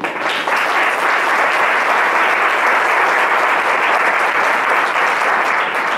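Audience applauding, breaking out suddenly and beginning to die away near the end.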